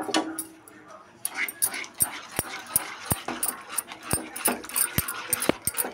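Wooden spatula knocking and scraping against a non-stick kadhai while stirring a thick milk and ground-sabudana mixture: irregular knocks, two or three a second, with a wet scraping sound between them.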